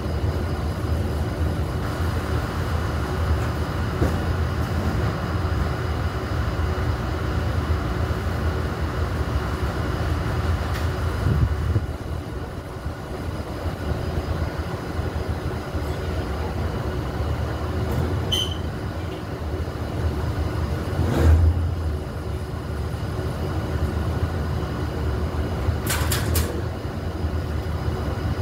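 Steady low rumble with a faint machine hum of several steady tones, broken by a few short knocks in the second half, the loudest about two thirds of the way through.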